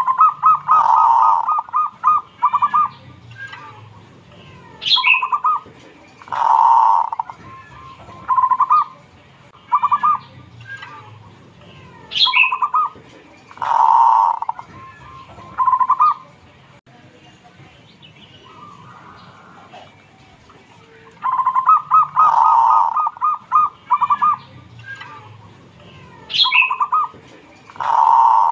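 Zebra dove cooing: repeated phrases, each a quick run of short staccato notes ending in a longer rounded coo, with a pause of a few seconds about two-thirds of the way through before it starts again.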